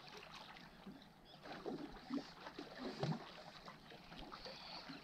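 Faint lapping of small lake waves against shoreline rocks, with scattered light knocks.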